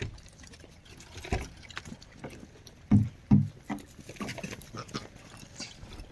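Gray langurs drinking from a plastic tub of water, with many small wet clicks of lapping and slurping. Two short low grunts come a moment apart about three seconds in.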